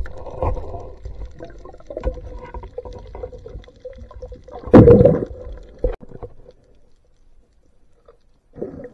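Muffled underwater noise from a camera held below the surface: water movement and irregular knocks, with one loud thump about five seconds in. It goes much quieter after about six seconds, with one short knock near the end.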